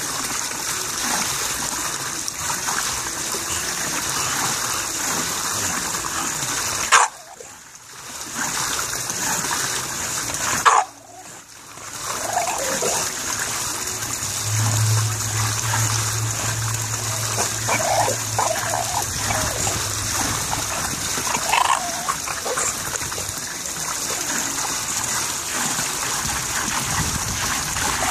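Steady trickling and splashing of hot tub water spilling over into the pool, with an English bulldog grumbling and whining now and then as it struggles at the edge. The water noise cuts out briefly twice near the start, and a low steady hum sounds for a few seconds in the middle.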